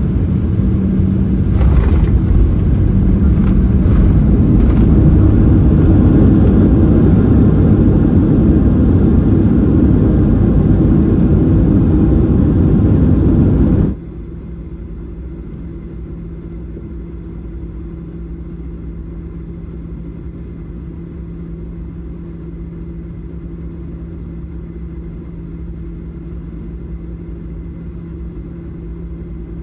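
Cabin noise inside a Boeing 737-700 airliner: loud jet engine and rumble, swelling over the first few seconds with a few light thumps. About halfway through it cuts off abruptly to a steady, much quieter cabin hum with a low drone.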